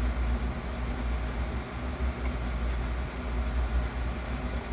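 Steady low rumble with a faint, even hum above it: constant background machine noise.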